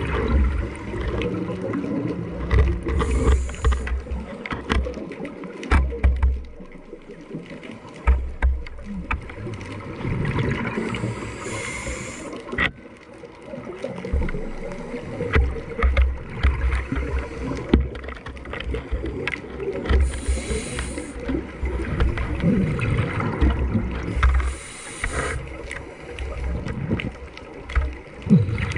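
Scuba regulator breathing heard underwater. A short hiss of an inhaled breath comes every several seconds, and between them there are stretches of rumbling, gurgling exhaust bubbles.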